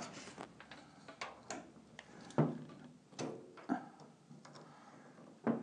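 Irregular light clicks and taps from a steel tape measure being held and shifted against a car door, with a sharper click near the end.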